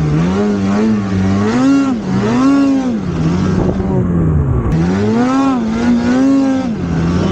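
Snowmobile engine revving up and down about once a second as the sled ploughs through deep powder under throttle.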